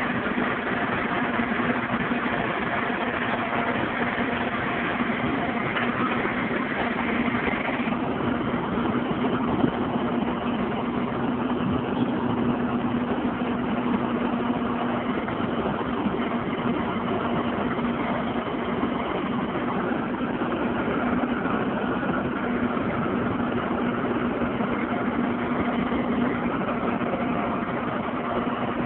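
Truck-mounted crane's engine running steadily as it hoists a shipping container, a constant even hum.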